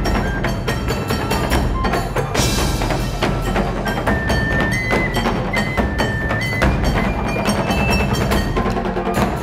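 Traditional Japanese taiko drum ensemble playing a fast, driving rhythm with sharp clicking strikes. A high held melody line steps in pitch over the drums, and a bright crash comes about two and a half seconds in.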